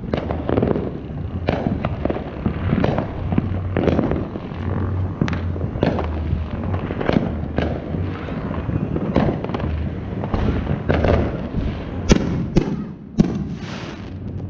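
Consumer fireworks and firecrackers going off in a rapid, irregular string of bangs and crackles, with two sharper, louder cracks near the end.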